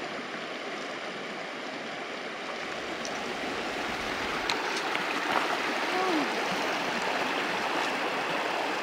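Steady rush of a creek's flowing water, slowly growing a little louder.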